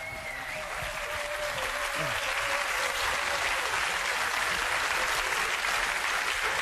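Audience applauding, building over the first couple of seconds and then holding steady.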